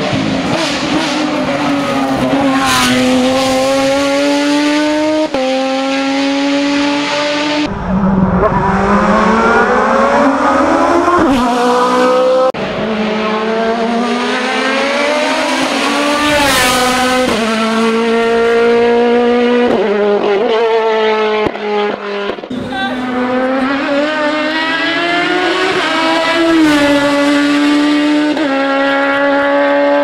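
Hill-climb racing cars at full throttle in turn: a Renault Mégane-bodied racing car, then open sports prototypes. Each engine climbs in pitch, then drops sharply at every quick upshift, with several shifts in a row.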